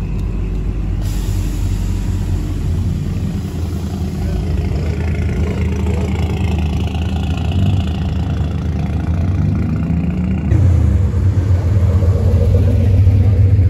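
Cars driving slowly past one after another, engines and exhausts running at low revs. About ten seconds in, a louder, deeper exhaust rumble takes over as a first-generation Chevrolet Camaro rolls by.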